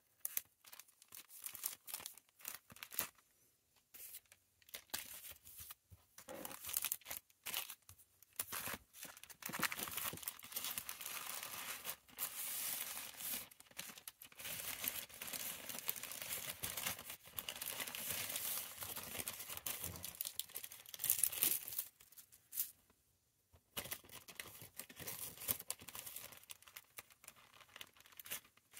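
Plastic packaging rustling and crinkling by hand: items in clear plastic sleeves handled, then pushed into a black plastic mailer bag that is folded and pressed flat. It comes in uneven bouts of crackling, busiest in the middle, with a brief lull about four seconds in and another a few seconds before the end.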